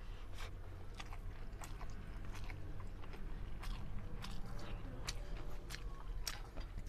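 Close-up chewing and smacking of a mouthful of rice and black chickpea curry, eaten by hand, heard as irregular short clicks over a low steady hum.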